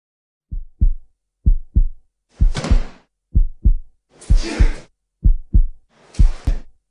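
Heartbeat sound effect: deep double thumps, lub-dub, about once a second, with a breathy whoosh laid over every second beat from a couple of seconds in.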